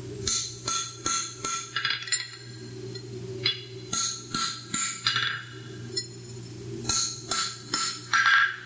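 Hammer blows on a farrier's nail-head stamp driving the nail holes of a steel horseshoe on the anvil, with a short metallic ring after each strike. The blows come in three runs of four or five, with pauses in between, over a steady low hum.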